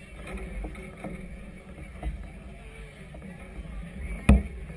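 Wind buffeting the microphone over choppy water, a steady low rumble, with one sharp knock about four seconds in.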